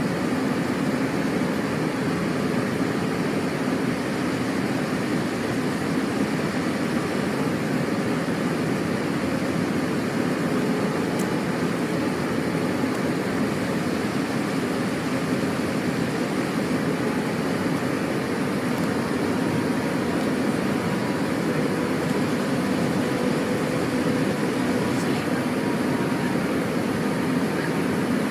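Steady airliner cabin noise on final approach for landing: the even rush of jet engines and airflow heard from a window seat, with a faint steady hum through it.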